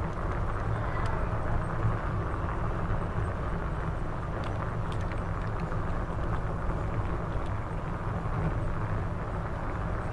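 Steady low rumble of a bicycle ride through city streets, with a few faint ticks about halfway through.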